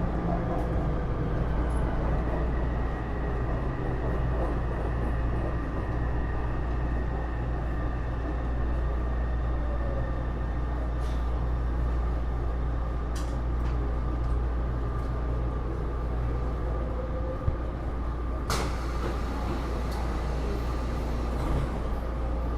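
Cabin running sound of a Taipei Metro C301 metro car fitted with Bombardier IGBT-VVVF traction: a steady rumble of wheels on track with a constant whine held at one pitch, as at steady speed. There is a sharp click about 18 seconds in.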